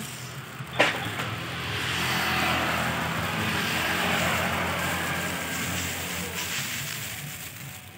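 A motor vehicle passing by, its noise swelling over a couple of seconds and then slowly fading away. A sharp click comes about a second in.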